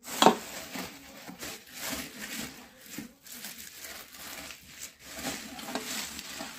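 Bubble wrap and plastic wrapping crinkling and rustling as they are pulled out of a stainless steel pressure-cooker pot, with one louder sharp crack near the start.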